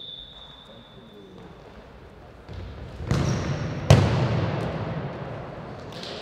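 The tail of a whistle blast fading out, then a futsal ball struck twice, about three and four seconds in, the second hit louder, each echoing round the large sports hall.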